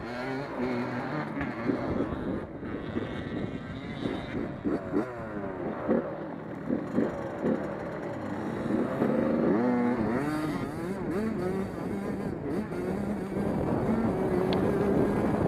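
Several race car engines running together, their pitches rising and falling as the cars rev and lift through the laps.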